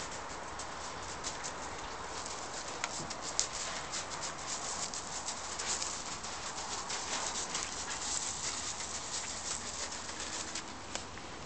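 A puppy's paws scuffing and crunching on loose gravel as it sniffs around, many small irregular clicks over a steady outdoor hiss.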